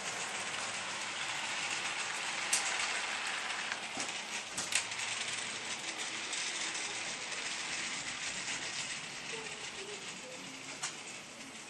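OO gauge model freight train, a GBRf Class 66 diesel model hauling container wagons, running along the track: a steady whirring rattle of wheels and motor with a few sharp clicks. It fades in the last few seconds as the train moves away.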